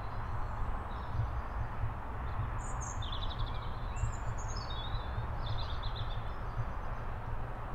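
Outdoor street ambience: a steady low rumble, with a few short bird chirps in the middle.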